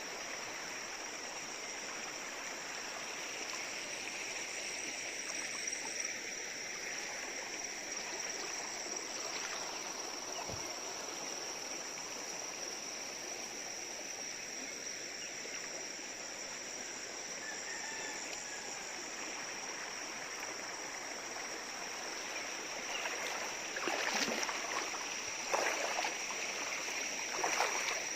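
Steady flowing water, like a stream, with a constant high-pitched insect trill over it. Several sharp short sounds come near the end.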